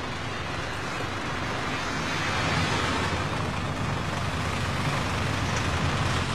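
Car noise heard from inside the car: a steady engine rumble with road hiss.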